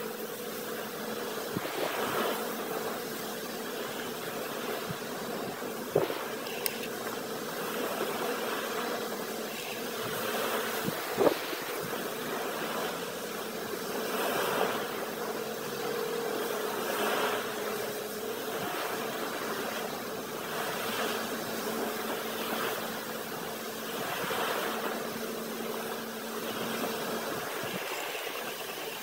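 Heavy diesel machinery running steadily, a constant hum that swells every couple of seconds. Two sharp clacks stand out, about six and eleven seconds in, the second the loudest sound.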